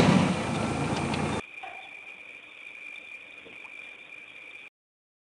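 Safari vehicle driving along a bumpy dirt track, engine and rattling loud, cutting off abruptly about a second and a half in. A faint hiss with a steady high whine follows, then dead silence near the end.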